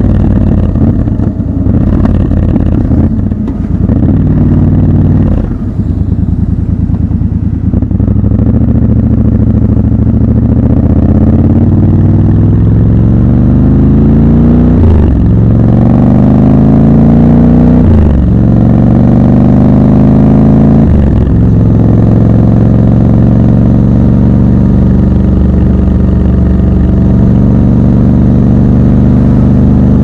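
Triumph Scrambler 1200 XC's parallel-twin engine pulling up through the gears, its note rising in pitch with a brief break at each of three upshifts, then settling into a steady cruise.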